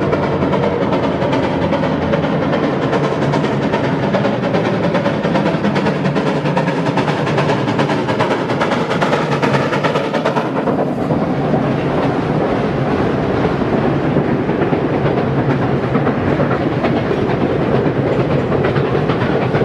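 DM&IR 332, a 1906 2-8-0 Consolidation steam locomotive, chugging hard up a grade with loud, rapid exhaust. About halfway through the locomotive passes by, the sound dulls suddenly, and its passenger coaches roll past with wheels clacking on the rails.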